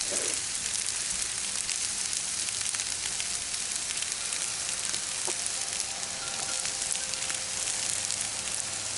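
Chicken and vegetables sizzling steadily on a hot Blackstone flat-top griddle, with a dense crackle of frying and small pops as sauce cooks on the steel.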